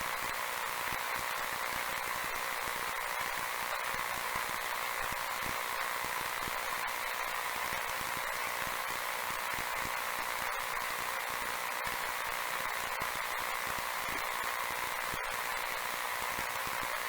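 Steady hiss of static with a faint crackle, thin and without any bass.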